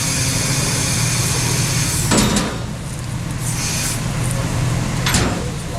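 A vehicle engine running steadily, with two short clunks about two seconds in and about five seconds in.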